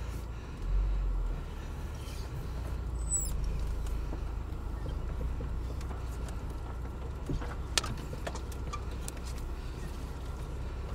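Car driving slowly along a snowy forest track, heard from inside the cabin: a steady low rumble of engine and tyres, with a few scattered small clicks and creaks.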